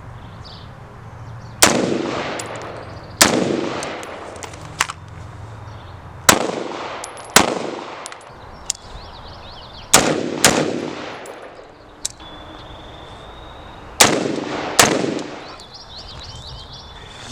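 About nine single gunshots fired at uneven intervals, some loud and some softer, each ringing out with a long echoing tail.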